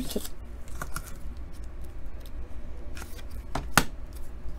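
Rigid plastic toploaders and sleeved trading cards being handled: scattered light clicks and plastic rustles, with a sharper pair of clicks about three and a half seconds in.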